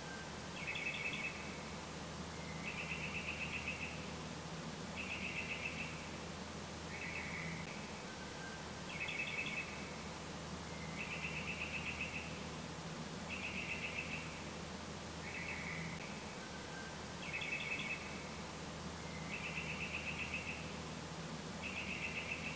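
Repeated trilled chirping calls from a small animal, about one every two seconds and each lasting around a second, over a steady low hum.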